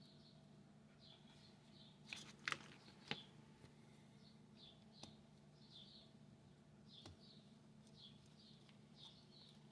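A few small sharp clicks and taps of parts being handled while a carbon brush is fitted into a small electric motor, the loudest about two to three seconds in, over a faint steady hum. A bird chirps faintly over and over in the background.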